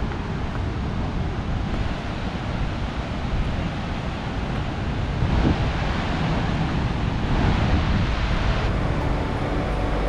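Steady rushing noise of wind on the microphone mixed with flowing water from the river and waterfalls below. It grows a little louder and brighter about halfway through.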